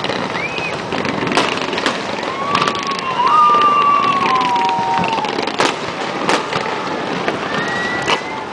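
Fireworks display: several sharp bangs from bursting aerial shells over steady crackling, with a drawn-out pitched tone in the middle.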